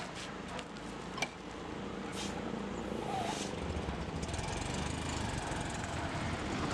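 Motorcycle engine kick-started, then running steadily. A sharp click comes about a second in, and the low engine rumble grows stronger from about halfway through as the bike moves off.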